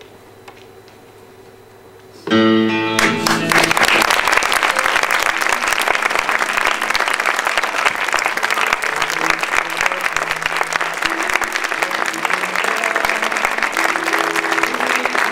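About two seconds of quiet, then music starts abruptly and an audience breaks into applause a moment later, clapping steadily over the music.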